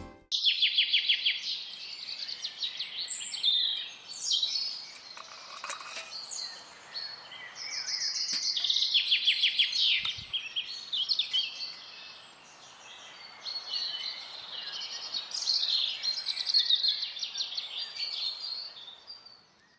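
Songbirds singing, with rapid trills and chirps overlapping one another and a quieter spell about twelve seconds in.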